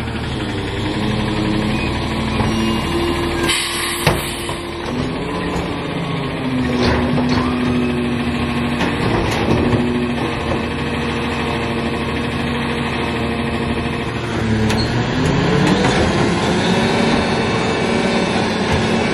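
Lodal EVO garbage truck's engine running, its pitch shifting up and down, with a couple of sharp knocks about four seconds in. About fifteen seconds in the engine speeds up in a rising glide and holds a higher steady note.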